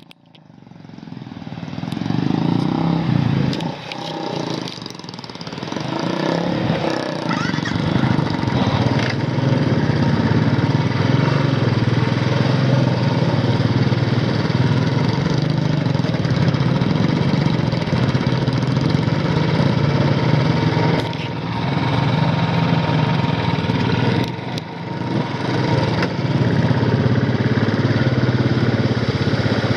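Royal Enfield 350's single-cylinder engine running steadily as the motorcycle labours uphill in first gear on a rough, wet stony road. The sound fades in over the first two seconds, with a few brief dips later on.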